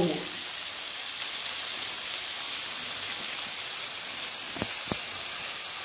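Onion-tomato masala sizzling steadily as it fries in a pan, with two light taps close together near the end.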